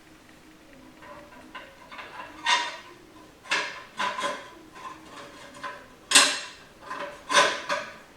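Metal transmission parts clinking and clanking together as they are handled and set in place: a series of sharp metallic knocks with a short ring, the loudest about six seconds in.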